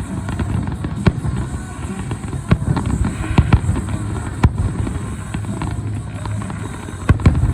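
Fireworks going off in a rapid, irregular string of sharp bangs and crackles, several loud reports standing out, with music playing underneath.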